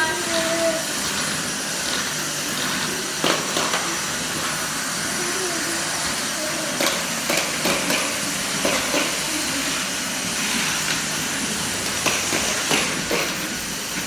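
Cordless stick vacuum running steadily, a constant rushing hiss with a high motor whine, crossed by a few short knocks and clatters and brief children's voices.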